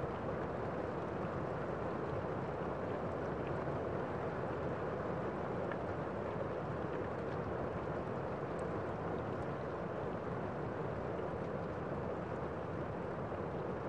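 Steady city street din, an even rush of noise with no distinct events standing out.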